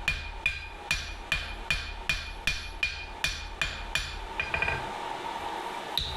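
Blacksmith's dog's head hammer striking hot steel on an anvil in a steady rhythm of a little over two blows a second, each blow with a short, high ring. The blows stop about four seconds in after a brief light rattle.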